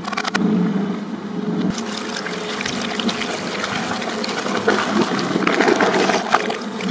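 Twin-shaft shredder running with a steady motor drone, first on a plastic toy car and then, from about two seconds in, on a large plastic bottle of cola. The plastic crunches and cracks while cola splashes and sprays out of the bottle.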